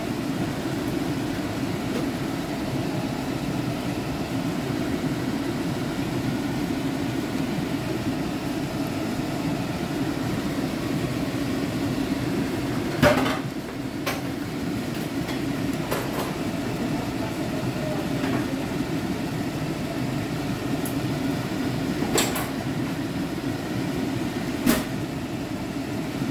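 Steady low kitchen rumble, with a few sharp clicks and knocks scattered through it, the loudest about halfway through.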